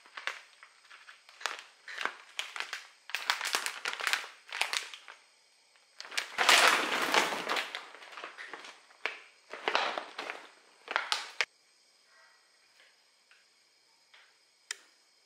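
Plastic snack bags crinkling and rustling as they are handled, in irregular bursts, loudest about halfway through. The crinkling stops near the end, leaving only faint ticks and one sharp click.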